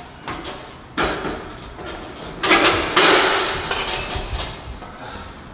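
Metal gym equipment clanking: a sharp knock about a second in, then a louder scraping clatter for about a second and a half that fades away.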